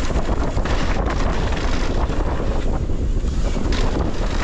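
Wind rushing over the microphone of a mountain bike descending a rain-soaked, muddy dirt trail, with tyre noise and occasional knocks from the bike over bumps.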